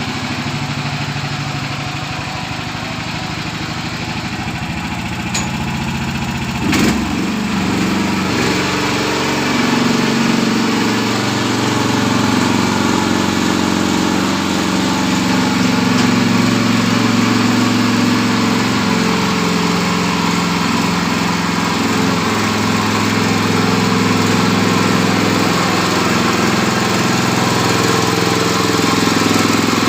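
Mini rotavator's small engine running steadily, with a short sharp knock about seven seconds in, after which it runs a little louder.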